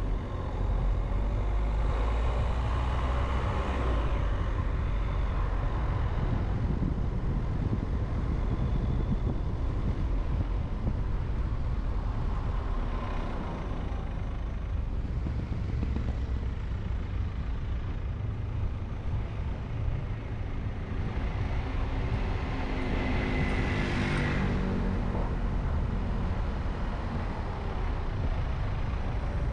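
A car driving through city traffic: steady low road and engine rumble, with other vehicles passing and one louder vehicle going by about three-quarters of the way through.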